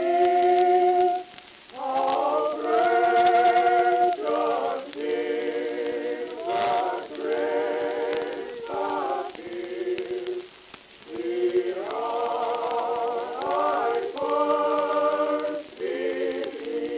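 Background music: several voices singing held notes in harmony with vibrato, in phrases of a second or two broken by short pauses.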